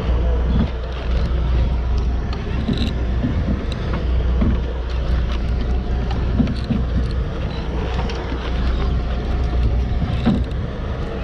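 Boat engine running steadily, with a baitcasting reel being cranked in scattered faint clicks as a hooked fish is reeled in.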